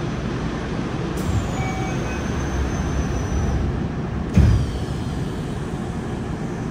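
Inside a Yokohama Blue Line 3000R subway car standing with its doors shut: the car's equipment hums steadily, a faint high whine falls slowly about a second in, and a single low thump comes around four seconds in.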